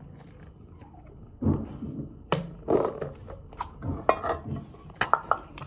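A metal tin of cat food handled and its ring-pull lid worked open: a string of sharp metallic clicks and knocks, the quickest cluster near the end.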